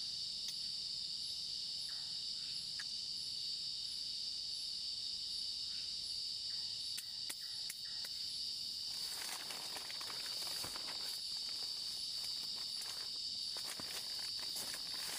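Crickets chirring steadily in a night-time chorus, with a few faint clicks in the first half. From about nine seconds in, close rustling and crackling joins them.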